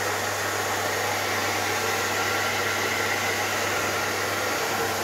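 A hand-held Top Gun hair dryer running steadily, with a rush of blown air and a low hum underneath.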